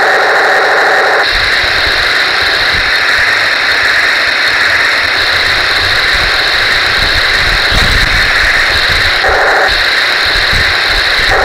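Metal-tracked Taigen Tiger 1 RC tank driving over a rough dirt path, heard from a camera on its hull: a loud steady mechanical whine and hiss from its drive and running gear, with irregular low knocks and rumbles as the tracks roll over bumps. The sound changes about a second in as the tank moves off, and changes back briefly near the end.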